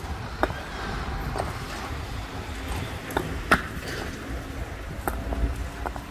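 Concrete paving stones clacking against each other as they are set in place by hand: irregular sharp knocks, the loudest about three and a half seconds in, over a low steady rumble.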